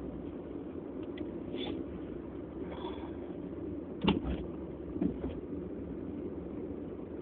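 Steady low background rumble, with one short sharp sound about four seconds in and a softer one about a second later.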